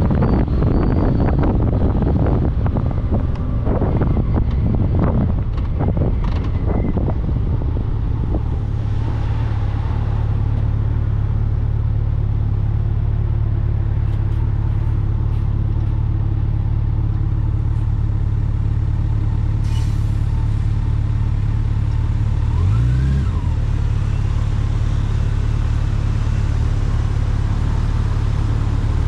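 Steady engine and road noise of a moving road vehicle, heard from on board, with wind buffeting the microphone for the first several seconds before it settles into an even low hum. A brief tone that rises and falls comes about 23 seconds in.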